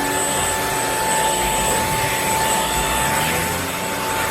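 Shark PowerDetect corded stick vacuum running steadily on carpet, a continuous motor rush with a high whine, its powered head pulling along the carpet.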